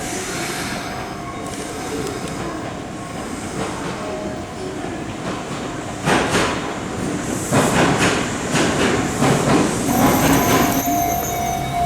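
Kintetsu electric train running at the station, with steady rumbling at first. About six seconds in, loud wheel clacks over the rail joints begin, and a high wheel squeal comes near the end.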